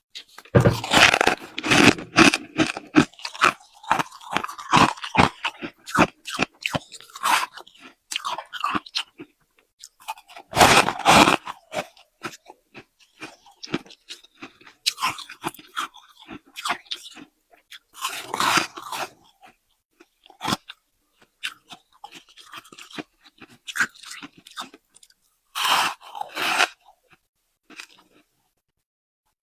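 Close-up crunching and chewing of soft, powdery freezer frost ice: bursts of dense crackling bites, about a second into the clip, near eleven, eighteen and twenty-six seconds, with sparser crunches of chewing in between.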